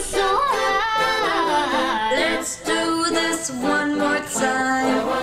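Music: singing voices holding notes and gliding between them, largely unaccompanied.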